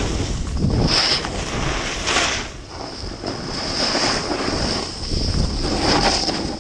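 Wind rushing over the microphone of a pole-held action camera as a skier descends a steep snow run, with swishes of edges scraping through the snow on each turn, about a second in, just after two seconds and near six seconds, over a steady hiss.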